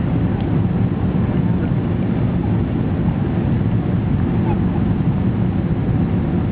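Steady low rumble heard inside the cabin of a Boeing 777 jetliner.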